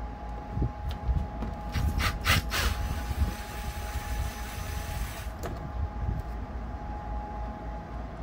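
Cordless drill-driver backing rusted steel screws out of an overhead wooden board, in a few short bursts and then a longer run that stops about five seconds in.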